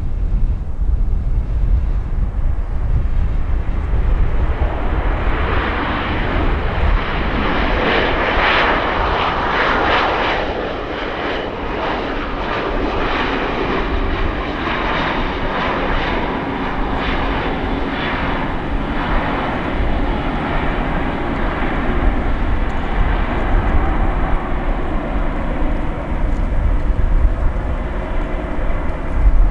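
Jet airliner's engines passing, building to loudest about eight to ten seconds in, then fading slowly into a lower rumble. Wind buffets the microphone with a low rumble at the start and near the end.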